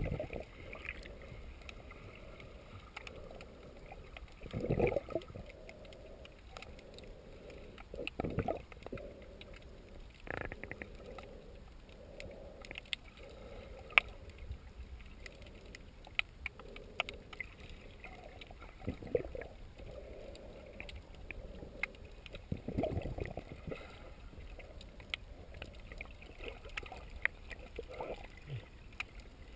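Underwater sound picked up by a snorkeler's submerged camera: a muffled, steady water rush with several louder surges of water movement lasting about a second each, and scattered sharp clicks and ticks, one standing out about halfway through.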